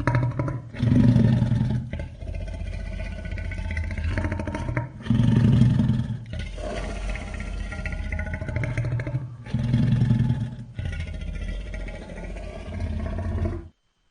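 Designed dinosaur roar sound effect: a long, low growling rumble with three louder deep surges about four to five seconds apart, cutting off abruptly shortly before the end.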